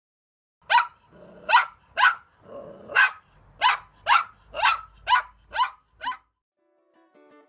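A dog barking about ten times in a row, roughly two barks a second, starting just under a second in and stopping about six seconds in.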